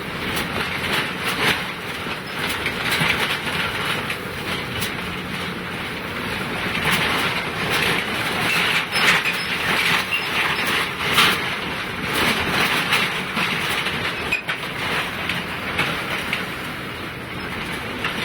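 Car driving over snow-packed, icy road, heard from inside the cabin: steady tyre and road noise with irregular clattering knocks.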